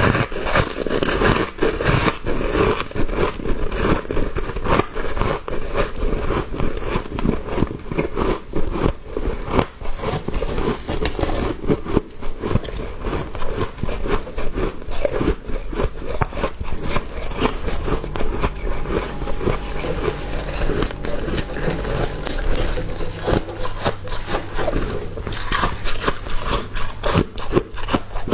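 Close-miked chewing and crunching of small, soft, powdery ice chunks: a continuous stream of crisp crunches and scraping crackles with no pauses.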